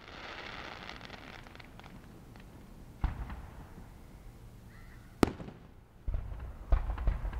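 Fireworks going off: a crackling spray at first, then two single sharp bangs about two seconds apart, and a quick run of several bangs near the end.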